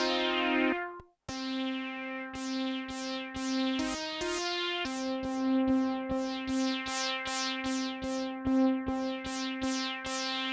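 Behringer Poly D analog synthesizer playing, with no effects. Held notes sound under a quick repeating pattern of plucky notes whose filter closes after each attack. The sound cuts out briefly about a second in, and the notes shift in pitch around four and five seconds in.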